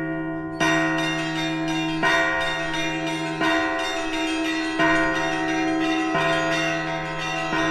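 Russian Orthodox church bells rung in the Moscow-style zvon: a low bell struck steadily about every second and a half, under quick patterns on smaller, higher bells.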